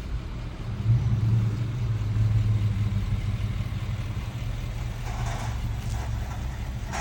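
Motor vehicle engine running steadily, a low hum that grows louder about a second in.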